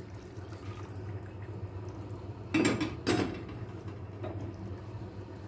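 Boiling water poured from a kettle into a casserole dish of pasta, with two clinks of dishware about two and a half and three seconds in.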